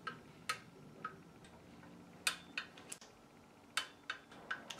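Torque wrench clicking on the clutch pressure-plate bolts as they are tightened to 17 foot-pounds: about nine sharp, irregularly spaced clicks.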